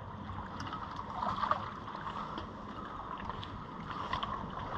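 Steady wash of harbour water around the wharf piles with some wind on the microphone, and a few faint light taps.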